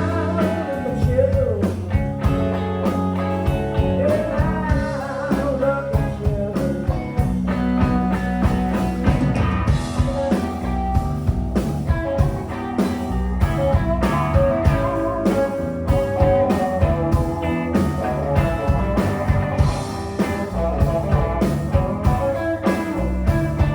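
Live blues-rock band playing a song, drums keeping a steady beat under guitar lines that bend in pitch about a second in.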